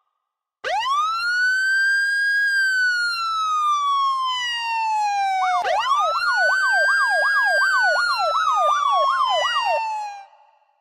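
Police siren: a long wail that rises and then slowly falls, followed by a second wail. From about halfway through, a fast up-and-down yelp plays over it, and the sound fades out near the end.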